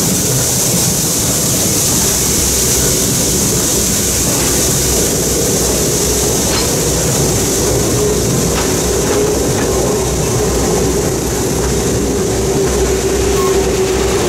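Passenger railroad cars rolling past close by: a steady rumble of steel wheels on rail with a few faint rail-joint clicks. A steady whine comes in and grows from about eight seconds in.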